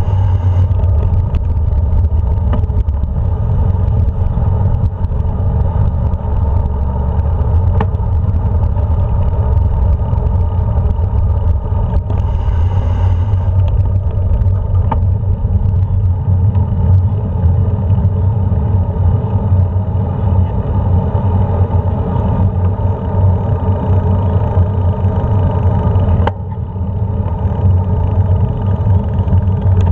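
Steady low rumble of wind and road noise on a handlebar-mounted action camera during a ride along town streets, with a steady motor hum under it. It eases a little near the end.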